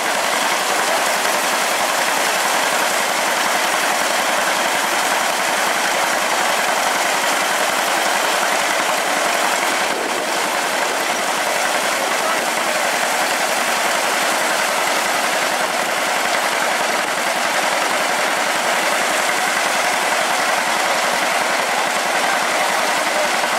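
1924 Wood Brothers grain thresher running steadily under load while threshing grain, driven by a tractor engine through a long flat belt.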